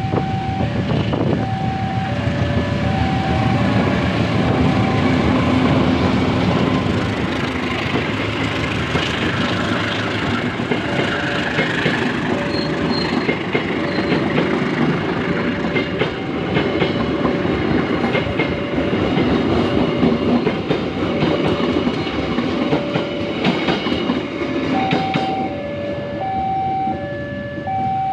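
A train passing close by with a steady rumble and wheel clatter. A two-tone electronic warning signal alternates between a lower and a higher note, about two notes a second, and is loudest near the end.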